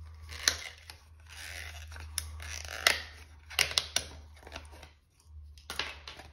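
Stiff plastic blister packaging being cut and pried open with a knife blade: a run of sharp cracks and snaps, with scraping and rustling of plastic between them.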